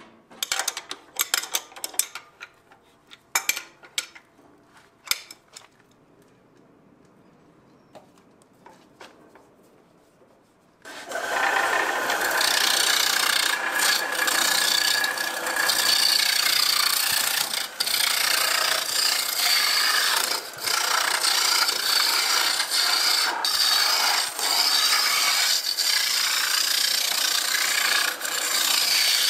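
Wood lathe turning a baseball bat blank: first a scatter of sharp knocks and clicks as the wood is handled on the lathe, then about eleven seconds in a loud, steady scraping hiss as the hand gouge cuts into the spinning wood, with a few brief dips.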